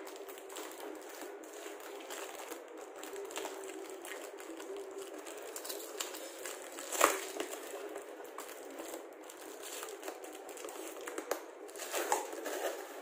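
Cardboard box being opened by hand: flaps and packing tape rustling and scraping, with one sharp snap about seven seconds in. Plastic wrapping crinkles near the end.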